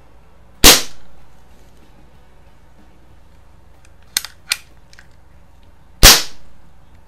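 Daisy Powerline 1200 CO2 BB pistol firing twice, about five seconds apart: each a sharp, loud pop that fades over about half a second. Between the shots come two light clicks of the pistol being handled.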